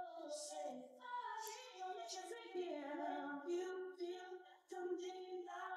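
A quiet, high singing voice holding and gliding between notes.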